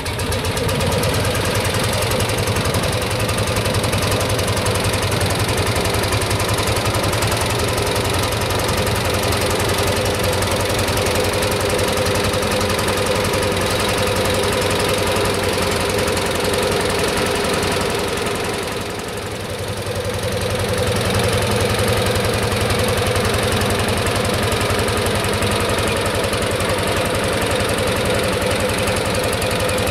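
Single-cylinder hot-bulb two-stroke tractor engine running with a steady, rapid knocking beat, briefly fading about two-thirds of the way through before coming back.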